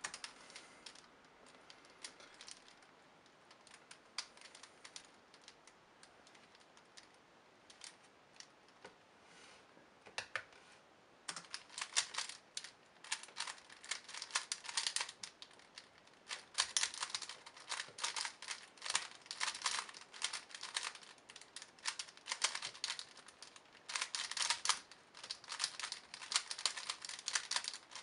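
Plastic megaminx being turned by hand: a few scattered clicks of its faces at first, then, about a third of the way in, a dense, continuous clatter of rapid face turns as the speedsolve starts.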